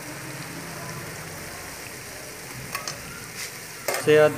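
Chicken, spinach and masala frying in an aluminium pot: a steady sizzle with a few light clicks about three seconds in. A brief, louder voice-like sound comes near the end.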